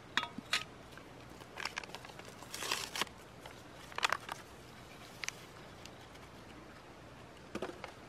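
Camp cooking handling: scattered light clicks from a small metal cook pot and its folding handle, with a crinkling rustle about halfway through as a drink-mix packet is handled and the powder poured into the hot water.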